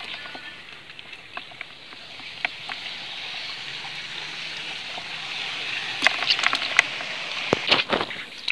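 Water trickling and dripping, with scattered sharp clicks and knocks from a multi-pronged metal fish spear against a bucket and the wooden boat. The knocks come thicker and louder from about six seconds in.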